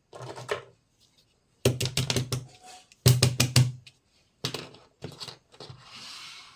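Miniature toy kitchenware being handled and set down on a surface, making bursts of rapid clicks and knocks. The loudest bursts come a little under two seconds in and again about three seconds in, and there is a brief rustle near the end.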